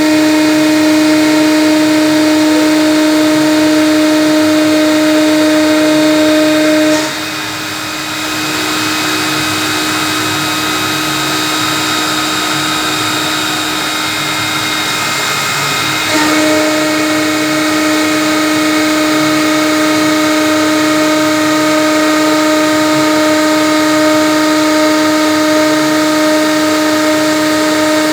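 CNC router spindle running with a steady, loud whine while cutting acrylic. About seven seconds in the whine turns quieter and a little lower in pitch. About nine seconds later it returns to its first level.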